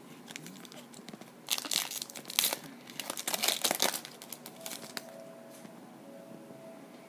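Plastic wrapper of a baseball card pack being torn open and crinkled: a run of sharp crackling rustles from about a second and a half in until about four seconds in.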